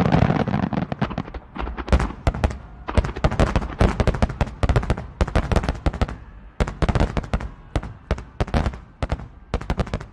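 Fireworks display: a barrage of aerial shells bursting in quick succession, many sharp bangs overlapping, several a second.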